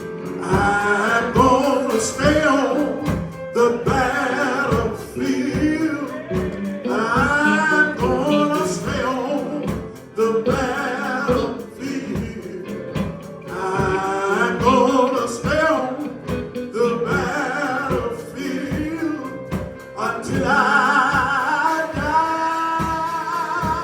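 Gospel singing over instrumental backing with a steady drum beat.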